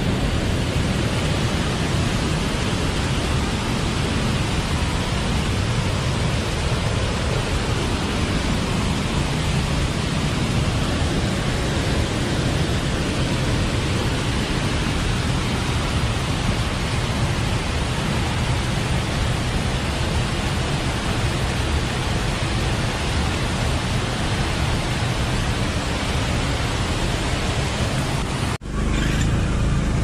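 Steady rush of water from a waterfall and the shallow stream running over the rocks below it, an even hiss with no break. It cuts off abruptly near the end.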